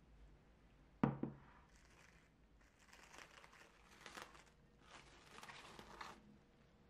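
A glass mixing bowl set down on the counter with one sharp knock about a second in, then plastic cling film crinkling in uneven bursts as it is peeled off the top of the bowl.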